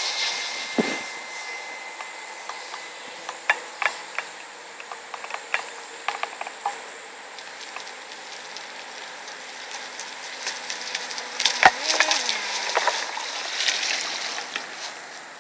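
Brushless electric RC speedboat running on the water, its motor whine and spray hiss fading away within the first second as it heads off into the distance, then a faint steady hiss that swells a little again near the end. Scattered sharp clicks and rustles close to the microphone, one louder click about twelve seconds in.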